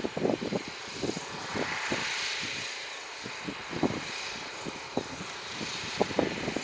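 A tractor running faintly in the distance, under irregular low buffeting and knocks on the microphone.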